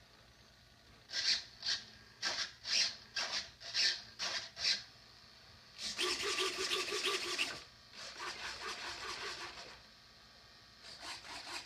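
Electric retractable landing gear on an RC warbird model whirring as the gear cycles, in stretches of about a second and a half, after a run of about nine short scraping, rubbing noises.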